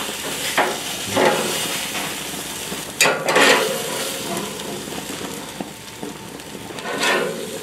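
Steaks sizzling on a gas grill's grates, a steady hiss that flares up louder about three seconds in and again near the end as the steaks are turned with a metal spatula.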